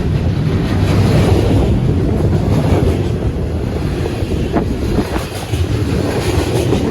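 Freight cars of a 24-car train rolling past with a steady rumble, the wheels clicking over rail joints a few times about two thirds of the way through. Wind buffets the microphone throughout.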